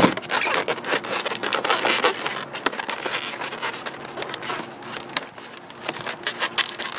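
Latex twisting balloons squeaking and rubbing against each other as a long balloon is wrapped and twisted around a balloon sculpture: a quick run of short squeaks and scrapes.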